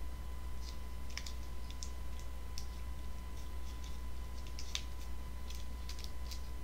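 Plastic candy wrapper crinkling and crackling in irregular bursts as fingers pick at it, struggling to tear it open, over a steady low electrical hum.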